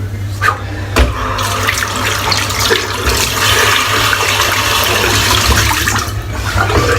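Water tap running into a sink for about five seconds, turned on just over a second in and off about six seconds in, after a couple of short knocks.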